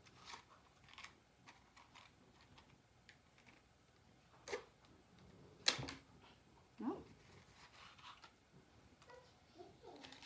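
A wooden match struck repeatedly against the striker strip of a matchbox: a string of short scratches and clicks, the loudest a little past halfway.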